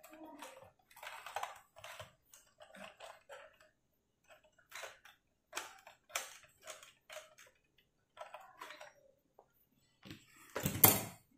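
Small irregular clicks, ticks and scrapes of bare copper wire being wound around the screw terminals of plastic switches and sockets on a PVC board, with a louder cluster of knocks and scraping near the end.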